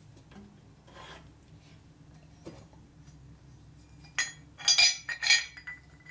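Metal tools and parts handled and set down, with a short cluster of sharp, ringing metallic clinks and clatters about four to five and a half seconds in, over a faint steady hum.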